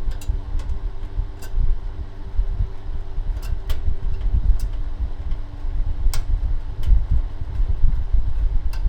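Fan-forced electric space heater running with a steady low rumble of blown air and a faint hum, while a screwdriver turns a handle screw into its metal top, giving scattered small clicks.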